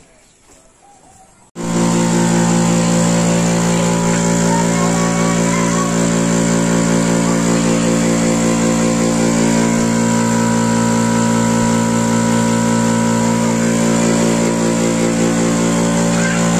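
Portable high-pressure PCP air compressor running steadily, filling an air rifle's reservoir. It cuts in abruptly about a second and a half in after faint room sound, then holds a loud, even hum.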